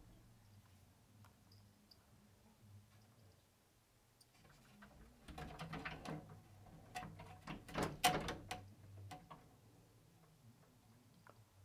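A cat pawing and scratching at the bottom of a wooden closet door, a flurry of scratches and knocks against the door starting about five seconds in and loudest around eight seconds.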